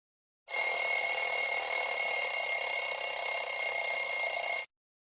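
A bell ringing steadily, like an alarm clock, for about four seconds, starting and cutting off abruptly as an edited sound-effect clip.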